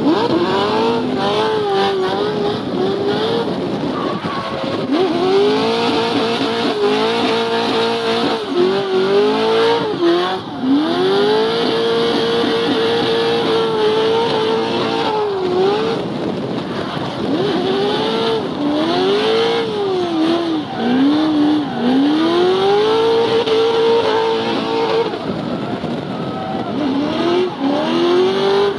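Drift car engine revving hard while drifting, its pitch sweeping up and falling back again and again and held flat at the top for a few seconds at a time, with tyres squealing.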